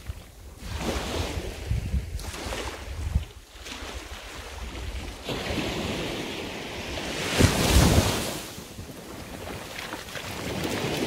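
Small waves breaking and washing up a sandy shore, swelling and ebbing, with the loudest wash about eight seconds in. Wind buffets the microphone throughout.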